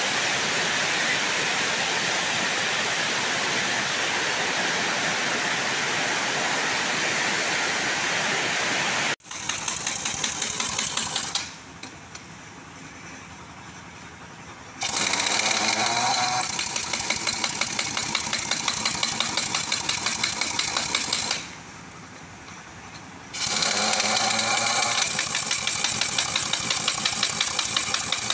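Heavy rain hissing steadily, then, about nine seconds in, a pneumatic impact wrench rattling on a dump truck's wheel nuts in three long bursts with short pauses between.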